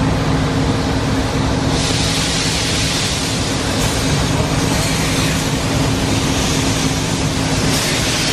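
Small steam tank locomotive moving off slowly with its cylinder drain cocks open, steam hissing loudly from beside the cylinders; the hiss grows stronger about two seconds in. A steady low hum runs underneath and fades near the end.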